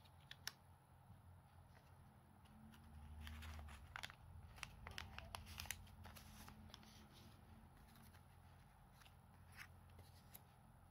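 Faint rustles and light clicks of paper being handled: small photo prints slid into a folded origami paper case and set down on a table, most of them in a cluster in the middle, over a low steady hum.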